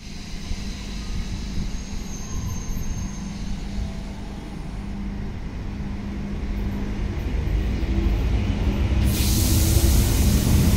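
CFL Class 2000 electric multiple unit pulling away from a platform, its steady low hum growing slowly louder as it gathers speed. A loud hiss starts suddenly about nine seconds in and carries on.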